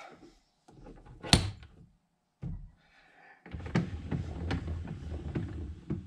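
Metal parts handled at a lathe: a sharp clink about a second in as a cutoff tool holder is set onto the quick-change tool post, a short knock a second later, then a couple of seconds of rattling, clattering metal.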